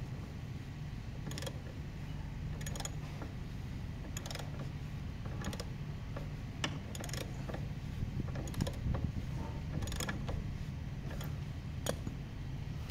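Hand ratchet wrench clicking in short bursts, roughly once a second, as it turns a fastener on a jet ski's jet pump, with a steady low hum underneath.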